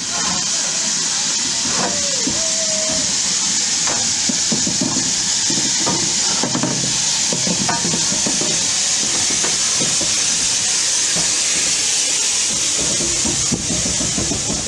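BR Standard Class 4MT 2-6-4 tank locomotive moving slowly with steam blasting from its cylinder drain cocks, a loud steady hiss. Scattered clanks and knocks from the engine run underneath it, with a brief squeal about two seconds in.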